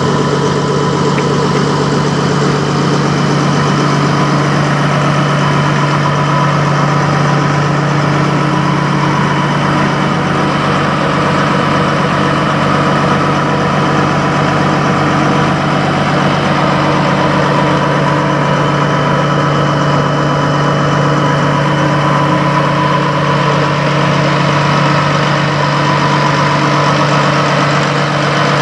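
Peterbilt semi truck's diesel engine idling steadily, an even low drone with no revving.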